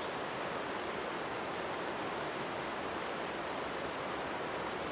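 River water rushing over rocks in shallow riffles: a steady, even rushing.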